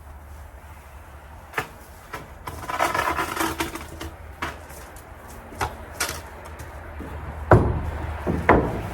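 Scattered knocks and bangs from siding being handled and fastened on a barn wall, with a stretch of rustling about three seconds in and the two loudest bangs near the end, over a steady low rumble.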